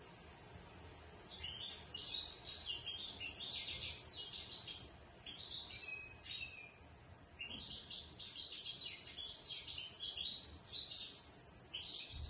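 A caged European goldfinch of the 'major' subspecies singing: two long runs of quick, high twittering notes with a short pause between them, and a third run starting near the end.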